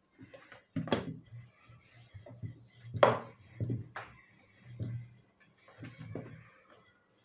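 Rolling pin rolling out chapati dough on a board: a series of rubbing strokes with a few sharper knocks.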